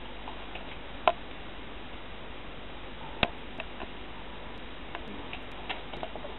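A handful of short, sharp clicks and taps over a steady hiss. The loudest come about a second in and a little past three seconds in, with fainter ones scattered later.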